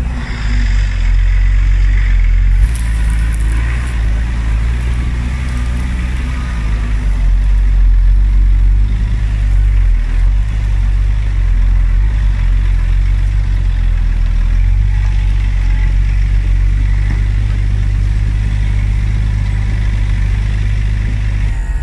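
Off-road 4x4 vehicle driving slowly over a rough track, heard from inside the cabin: a steady low engine rumble with a few light knocks.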